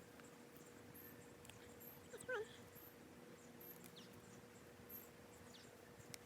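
Near silence with a faint steady hum, broken about two seconds in by one short animal call that slides up and down in pitch.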